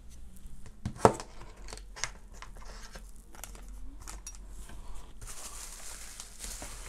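Plastic packaging being handled: a knock about a second in and scattered light clicks and rustles, then steady crinkling of a plastic bag from about five seconds in.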